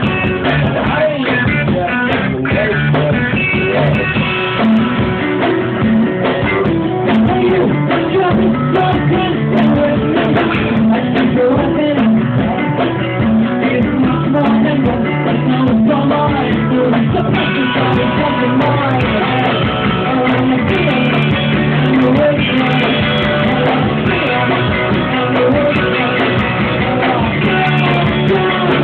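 Live rock band playing a song: electric guitars, bass and drum kit.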